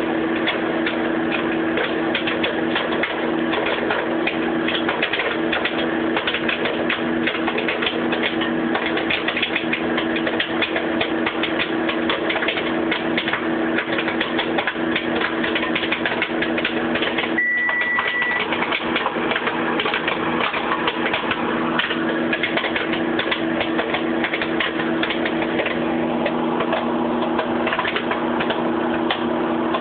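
Microwave popcorn popping fast and thick inside a running microwave oven, many pops a second over the oven's steady hum. A little past halfway the microwave gives one short beep and its hum fades out for several seconds, then comes back near the end while the popping goes on.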